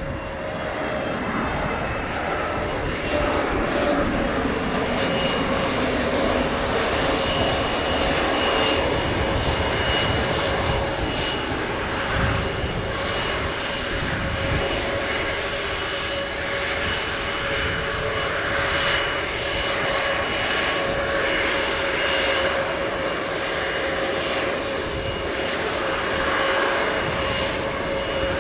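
Frontier Airlines Airbus A320-family twin-engine jet airliner landing. Its turbofan engines run steadily with a continuous whine in two pitches, a middle tone and a high one, over a broad rush of jet noise.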